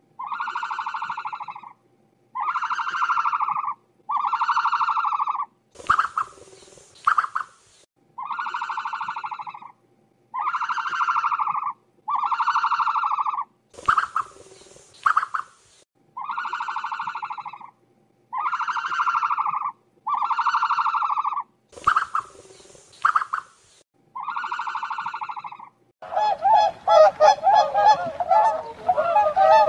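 A bird's drawn-out honking calls, each about a second and a half long, in runs of three with short pauses, the same run repeating every eight seconds or so. Near the end, a faster run of goose-like honking takes over.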